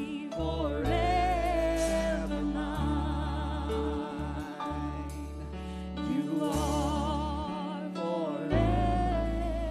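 Live church worship band performing a worship song: several singers hold long notes with wide vibrato over piano and a deep, sustained bass line, singing the lyrics 'will be forever mine' and then 'you are forever mine'.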